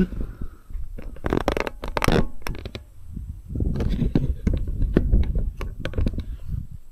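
Close rustling and scraping with scattered clicks and knocks and a low rumble: clothing and handling right at the microphone. No angle grinder is running.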